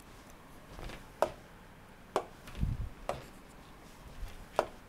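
Stylus tapping on a tablet screen: four sharp clicks about a second apart, with a soft low thud between the second and third.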